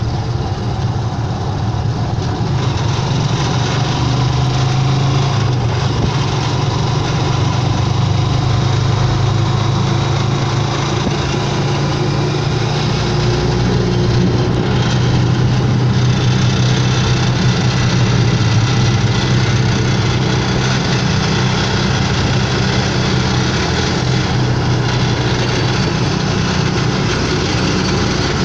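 Motorcycle engine of a Philippine tricycle (motorcycle with sidecar) running steadily while the trike drives along, heard from inside the sidecar cab with road and tyre noise.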